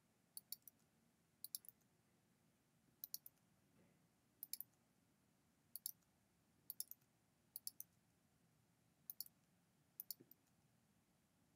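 Computer mouse-button and key clicks, in quick pairs and threes about once a second, against near silence.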